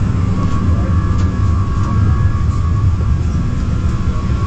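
Steady cabin noise aboard an Airbus A380: a loud low rumble with faint steady tones above it.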